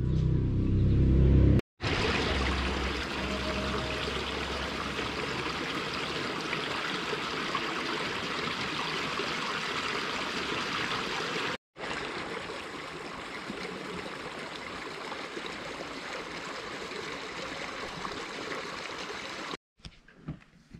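Small stream of running water flowing steadily along a shallow earthen channel: an even rushing of water, broken once by a short cut to silence partway through. It opens with a brief loud low rumble.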